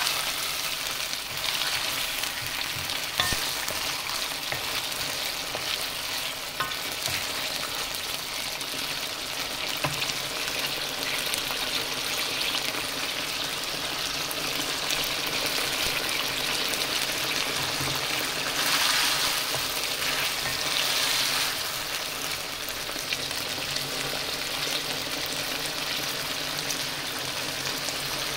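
Sardines with onions and chilies frying in tomato sauce in a wok, a steady sizzle that swells briefly about two-thirds of the way through. A wooden spatula stirs and knocks against the wok a few times in the first ten seconds.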